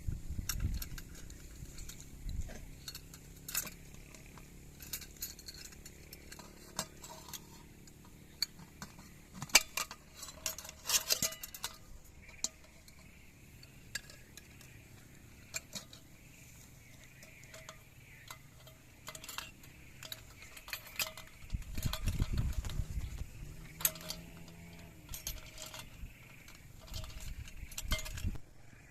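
Irregular clinks and knocks of metal utensils against pots and dishes, some single and some in quick clusters.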